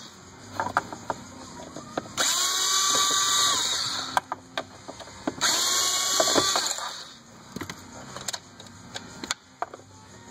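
Cordless power screwdriver backing out the cup-holder screws: two runs of about a second and a half, the first about two seconds in and the second about five and a half seconds in, the motor's pitch rising as it spins up and then holding. Light clicks and rattles of screws and plastic trim come between the runs.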